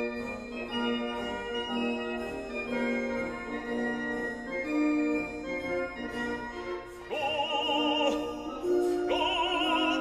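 Background music: slow, held organ-like chords, joined about seven seconds in by an operatic singing voice with a wide vibrato that sings one short phrase and comes back about two seconds later.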